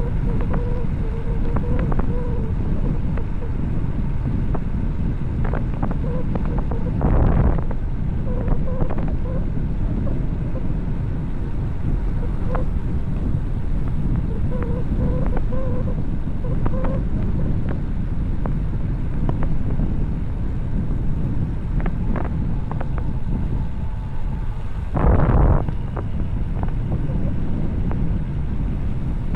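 Wind buffeting the microphone and road rumble on a fast bicycle descent, with a faint on-and-off whine. Two louder rushes of wind, about seven seconds in and near the end.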